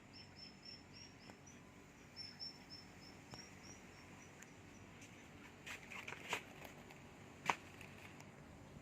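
Faint, high chirps from a small bird in two quick runs of several notes each, about three a second. Later come scattered rustles and clicks, with one sharp click about seven and a half seconds in.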